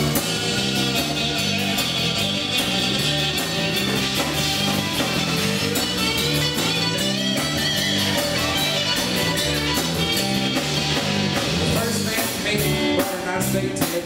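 A live country-rock band playing an instrumental stretch between verses: electric guitar over bass guitar and a drum kit, with strummed acoustic guitar.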